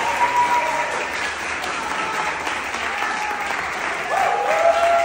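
Audience applauding, with whoops and cheers rising and falling over the clapping near the start and again from about four seconds in.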